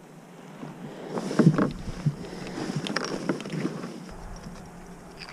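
A big trout being netted and lifted aboard a small skiff: a scatter of knocks and rattles from the landing net and the thrashing fish against the hull, loudest about a second and a half in, over steady wind and water hiss.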